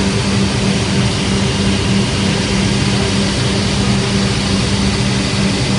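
1998 Vollenweider two-head fabric shearing machine running: a steady, loud mechanical hum with a low droning tone over an even rushing noise.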